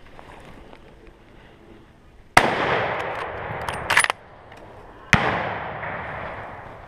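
Two shots from a hunting gun, nearly three seconds apart, each followed by an echo that fades over a second or more.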